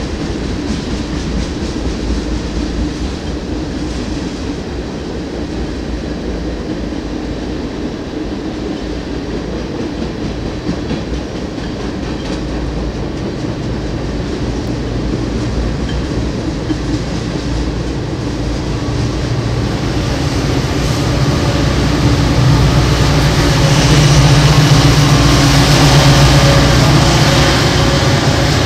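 Freight train passing: tank cars rolling by on steel wheels with a steady rumble. In the last several seconds it grows louder as the diesel engines of the Norfolk Southern distributed-power locomotives at the rear of the train come alongside.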